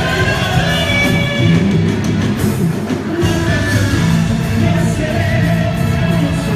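Loud amplified quadrilha junina music with a sung vocal over a steady beat.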